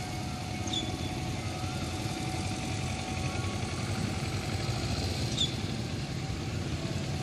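Several motorcycle engines running at low speed, a steady low rumble, with two short high chirps, one about a second in and one later on.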